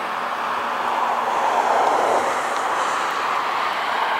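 Jet engines of an Airbus A321neo (Pratt & Whitney PW1100G geared turbofans) running as the airliner moves along the runway: a steady rushing noise that swells a little about two seconds in.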